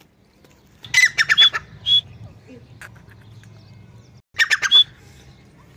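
Grey francolin calling. There are two bouts of rapid, harsh, clicking notes, about a second in and again after four and a half seconds, and each ends in a clearer, higher note.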